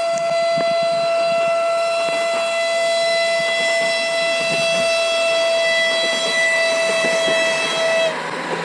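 Passenger train's horn sounding one long, unbroken, high-pitched blast that cuts off suddenly near the end. It is a warning to people on and beside the track.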